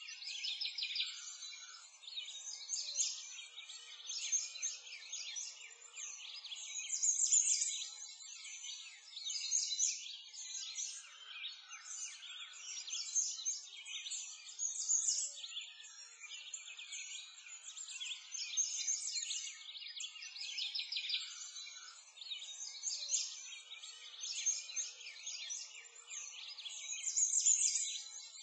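A dense chorus of many small birds chirping and twittering, with the calls overlapping continuously and swelling and fading every second or two, and nothing deep underneath: a nature ambience track.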